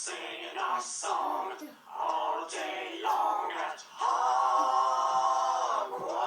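Young voices singing and chanting a sing-song name chant, ending in one long held note about four seconds in that lasts some two seconds.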